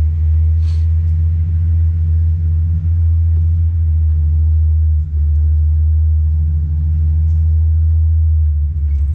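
Power wheelchair driving along: a steady low hum and rumble from its drive motors and wheels, with a short click about a second in.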